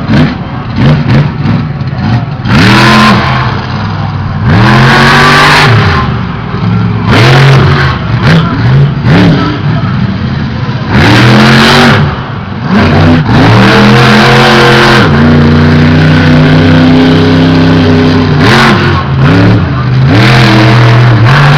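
Loud monster truck engine revving hard, its pitch climbing and dropping again and again, then held high and steady for a few seconds past the middle before more sharp revs.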